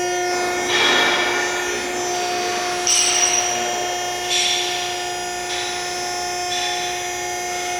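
A steady, high-pitched machine whine, broken by five or six short surges of power-tool noise lasting about a second each.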